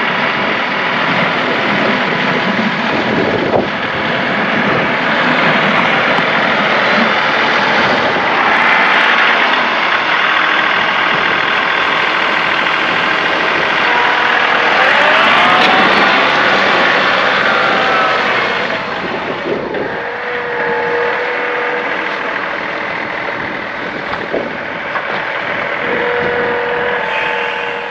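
John Deere 2038R compact tractor's three-cylinder diesel engine running steadily while plowing snow, its pitch rising and falling around the middle, with a steady whine coming in past the two-thirds mark.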